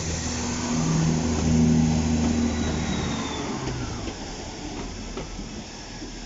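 Class 170 Turbostar diesel multiple unit pulling away under power, its underfloor diesel engines running with a steady low note. The engine sound steps up about a second in, peaks around two seconds in, then fades as the train draws away.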